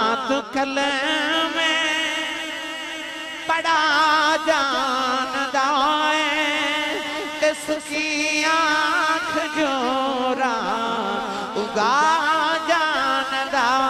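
A man's voice singing a devotional verse in a slow, ornamented style, with long held notes that waver and glide up and down.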